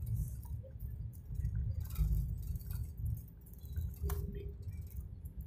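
Airliner cabin during the landing rollout, spoilers raised: an uneven low rumble from the wheels on the runway, with small clicks and clinks of rattling cabin fittings, a sharp one about four seconds in.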